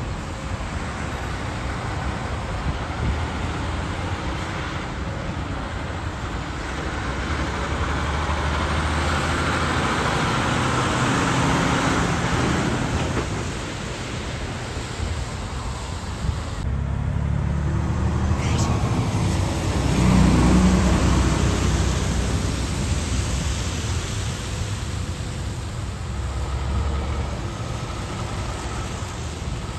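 Semi trucks driving past on a wet road: low diesel engine rumble and the hiss of tyres on wet pavement, growing louder twice as rigs go by.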